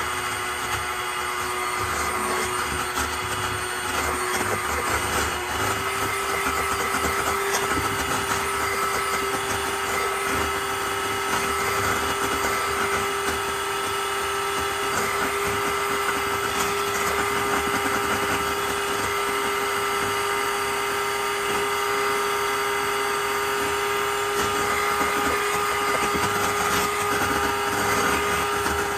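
Electric hand mixer running steadily, its beaters whipping a white cream mixture in a stainless steel bowl. The motor's hum steps up slightly in pitch about five seconds in.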